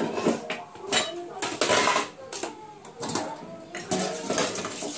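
Stainless steel pots, pans and plates clattering and clinking as washed utensils are set down in a crowded dish rack. There are several sharp knocks, some with a short metallic ring.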